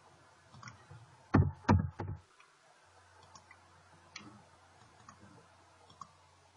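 Computer keyboard and mouse clicks: three loud knocks close together about a second and a half in, then a few faint single clicks, over a steady low hum.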